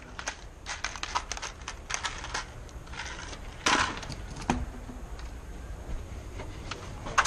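Handling noises: a small plastic bag of RJ11 modular plugs rattling and crinkling, and tools being picked through in a plastic tool tote, a run of small irregular clicks with a louder rustle about four seconds in.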